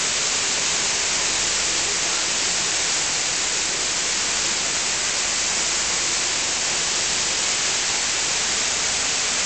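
Steady, even hiss that does not change, strongest in the treble.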